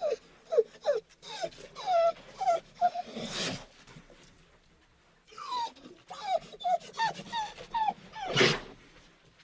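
A dog whining in two runs of short, high, falling whimpers, each run ending in a loud breathy burst of noise.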